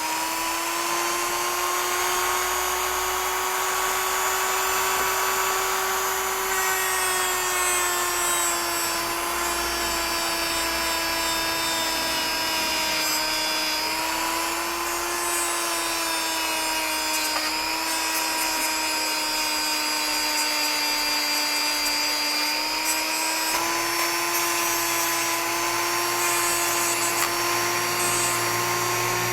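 Small electric power tool running steadily at high speed with a whining motor, its pitch sagging slightly and recovering several times.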